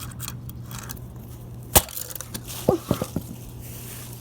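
A single hard blow on a plastic Nerf gun about two seconds in, followed a second later by a short run of three or four lighter knocks and clatter.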